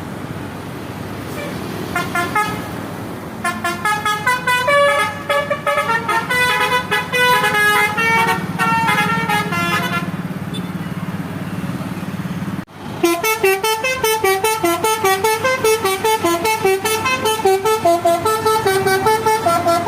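Basuri musical air horn playing a fast tune of short stepped notes over a steady low engine hum. The tune stops about ten seconds in, and after a sudden break a second quick tune of alternating notes starts and runs on.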